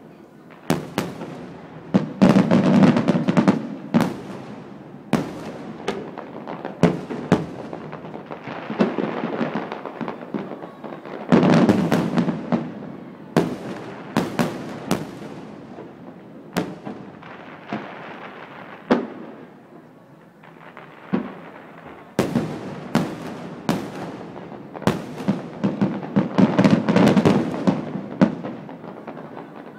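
Fireworks display: aerial shells going off in an irregular series of sharp bangs. There are several swells of dense crackling and rumbling where many bursts overlap, about two seconds in, around the middle and near the end.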